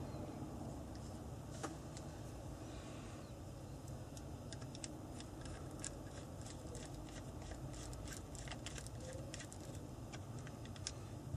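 Faint metallic clicks and ticks from a slotted screwdriver turning a screw in the metal adjuster plate of an adjustable rifle butt pad, along with small knocks of the parts being handled. The clicks come scattered at first and thicker from about halfway through, over a low steady hum.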